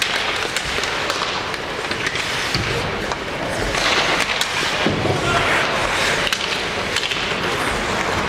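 Ice hockey in play: skates scraping and carving on the ice, with scattered sharp clacks of sticks and puck, over the echo of the rink and some voices.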